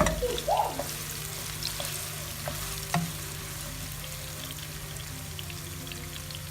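Sliced onions sizzling as they fry in hot oil in a frying pan with whole spices, being browned. The pan is knocked sharply near the start and again about three seconds in.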